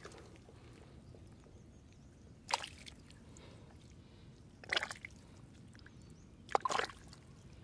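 Water splashing: three short sloshing splashes, about two seconds apart.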